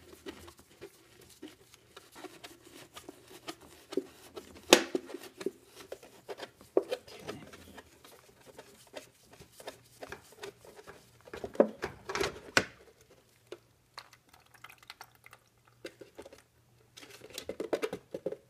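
Thin plastic of a cut-down soda bottle crinkling and clicking as it is held and shifted under an oil filter being unscrewed by hand. There are irregular small clicks throughout, a sharper knock about five seconds in, and a cluster of knocks around twelve seconds.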